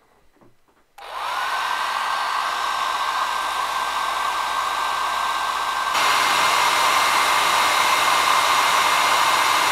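Compact hair dryer switched on about a second in, its motor whine rising briefly and settling into a steady rush of blowing air; about six seconds in it steps up louder and higher in pitch. It is blowing hot air to shrink a new heat-shrink wrap onto an 18650 battery cell.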